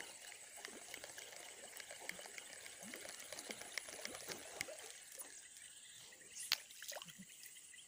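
Faint steady chirring of crickets and other insects, with many small ticks and a light trickle of water, and one sharp click about six and a half seconds in.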